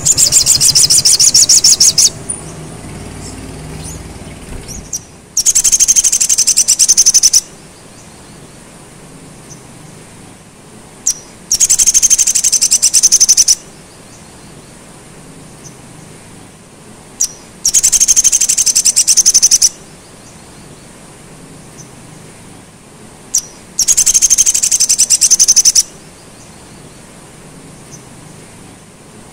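Male olive-backed sunbird (sogon) singing: a fast, high-pitched trill about two seconds long, given five times roughly every six seconds, with a single short chip before several of the trills.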